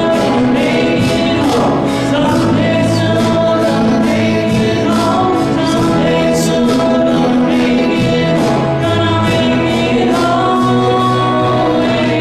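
A church choir singing a hymn, loud and steady, with sustained chords.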